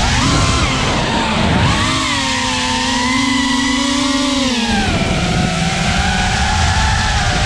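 A 5-inch FPV racing quadcopter's brushless motors and propellers whining. The pitch swoops up and down with the throttle, is held high for a couple of seconds, then drops about five seconds in, over a low rush of wind.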